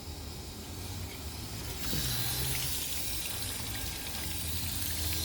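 Boat motor running at idle with a steady low hum, over a rush of churning water that grows louder about two seconds in.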